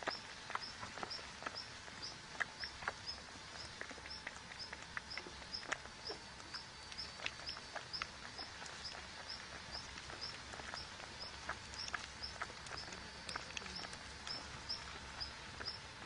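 A bird's short high chirp repeating evenly, about twice a second, over scattered soft clicks and rustles.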